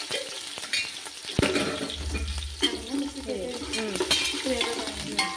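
Onions, green chillies and whole spices sizzling in oil in a large aluminium pot while a metal spoon stirs them, scraping and clinking against the pot, with one sharp knock about a second and a half in.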